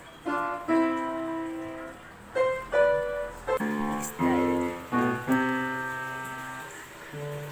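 A child playing a slow tune on the piano, one note or chord at a time, each left to ring and fade.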